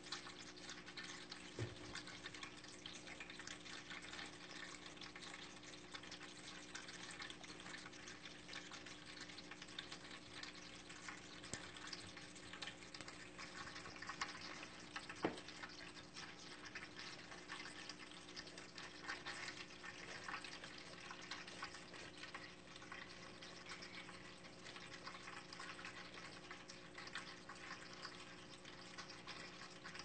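Pet water fountain running: water trickling and dripping steadily over a low, steady pump hum, with two brief knocks, one near the start and a louder one about halfway through.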